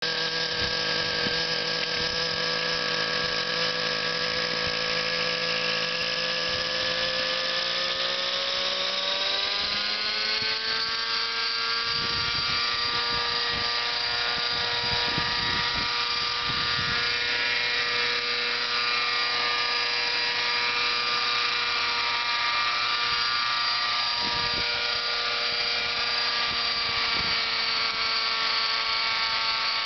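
Nitro glow engine of an RC helicopter running steadily, then rising in pitch over a few seconds about a third of the way in as it spools up to lift off, and holding a steady higher whine while the model hovers.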